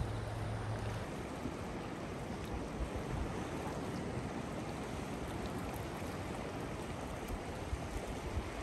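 Seashore ambience: a steady wash of small waves on the rocks, with wind on the microphone. A low steady hum runs underneath and stops about a second in.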